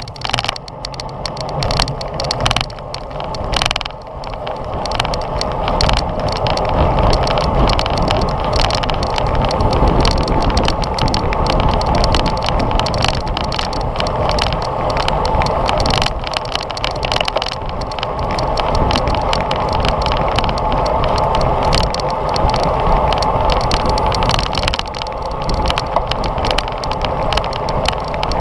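Wind rushing over a GoPro's microphone on a bicycle in a road race, with tyre and road noise and some rattling, growing louder over the first several seconds as speed builds and then holding steady.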